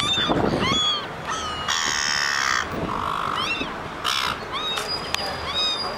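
A flock of silver gulls calling over one another: many short, harsh squawks in quick succession, with a longer, raspier call about two seconds in.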